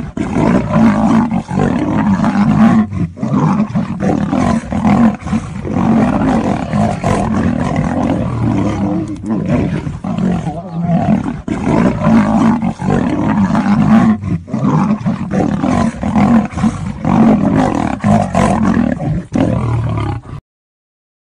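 A lion and a tiger roaring over and over as they fight, with hardly a pause. The sound cuts off suddenly near the end.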